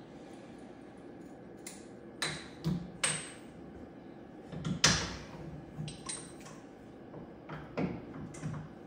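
A run of irregular clicks and knocks, like things being handled and set down during work, about nine in all, with the loudest about five seconds in.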